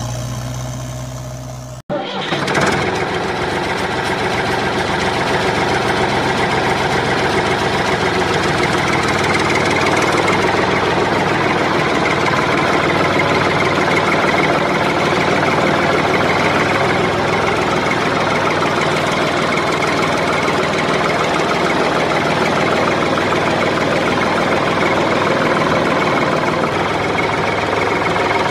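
An engine running steadily. A different, lower engine hum fades out and cuts off sharply about two seconds in, and the louder engine sound takes over and holds steady.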